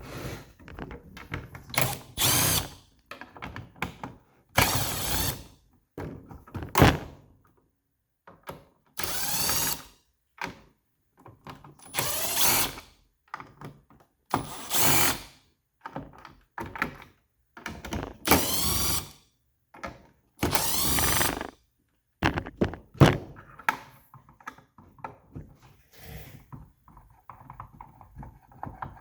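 Cordless power drill backing out T15 screws from the plastic base of a fan, in about eight short runs of half a second to a second each. Clicks and knocks of the plastic housing being handled come between the runs.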